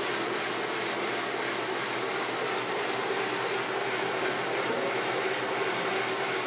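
Motor-driven spinning machine turning a metal degh while a cloth pad is held against the spinning surface to polish it: a steady whirring hiss with no breaks.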